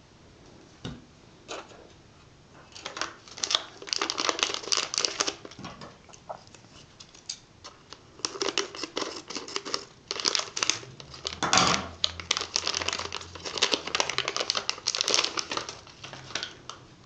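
Crinkling and rustling handling noises in irregular clusters of small clicks, dense through most of the stretch.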